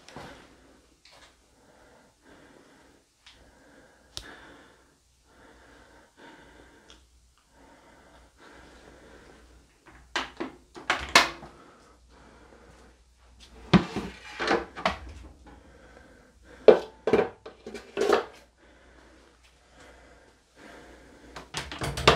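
Handling noise: a series of short knocks and clatters as hard objects are moved and set down, coming in several bursts from about halfway through.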